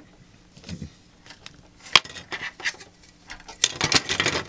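Plastic model kit sprue being handled and turned over, its parts clicking and rattling lightly: one sharp click about two seconds in and a clatter of quick rattles near the end.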